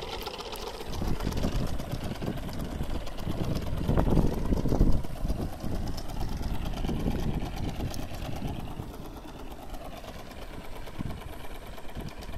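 Leaf-spring fin drive of an RC model catamaran running with a steady, fast mechanical clatter, with low rumbling bursts in the first five seconds.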